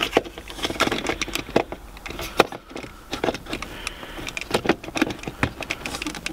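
Plastic centre-console trim of a Mini Cooper S R53 being handled and slotted back into place around the gear lever: irregular light clicks and knocks.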